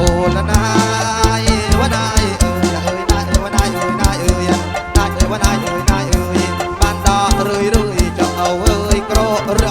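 Kantrum band playing an instrumental passage through a PA system, with a regular drum beat under a bass line and melody.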